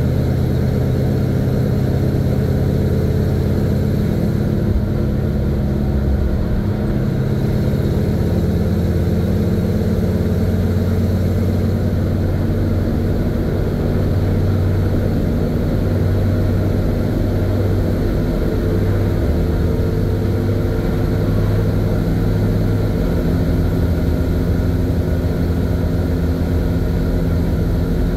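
1970 Chevy C50 dump truck's engine running steadily at road speed, heard from inside the cab as a low drone. Its pitch shifts to a new level about seven seconds in and again about twenty-three seconds in.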